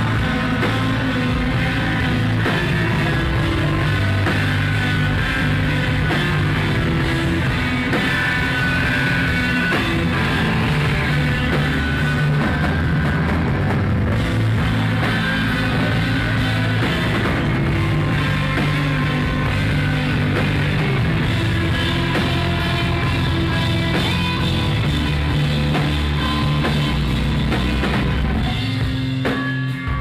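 Rock band playing live: electric guitars and a drum kit with cymbals, recorded loud through a phone's microphone. The full band thins out just before the end.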